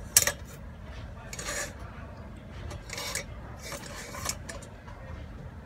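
Deep fryer's wire mesh frying basket and folding wire handle being handled against its metal pot: a sharp metallic clink just after the start, then a few short scraping rattles of wire on metal.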